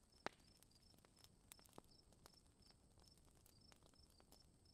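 Near silence with faint insect chirping: a short high chirp repeated a few times a second, with a few faint ticks.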